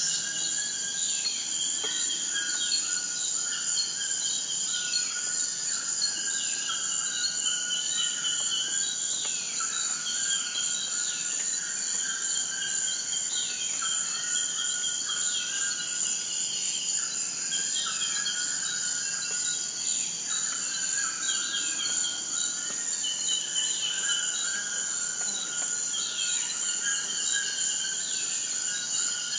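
Steady high-pitched insect chorus, with many short, repeated falling bird chirps over it.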